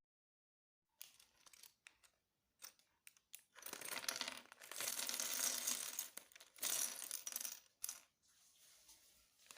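Small plastic building-block pieces clicking and clattering: a few scattered clicks, then two longer bursts of rattling as the pieces are handled and spilled out.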